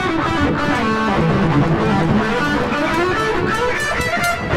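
Electric guitar played through a Korg AX3000G multi-effects processor on its solo preset, with drive, modulation, delay and reverb engaged, sounding a run of changing notes.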